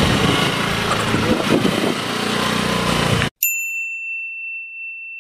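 Motor scooter engine running with music under it, cut off abruptly about three seconds in. A single electronic ding follows, ringing steadily for about two seconds.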